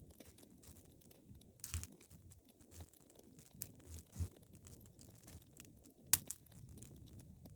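Wood fire crackling in a fireplace, with scattered sharp pops over a low, steady burning sound; the loudest pop comes about six seconds in.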